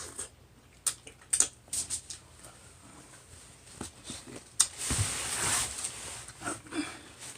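Close-up eating sounds from a seafood boil: wet smacking and clicks of chewing, with a longer slurp about five seconds in.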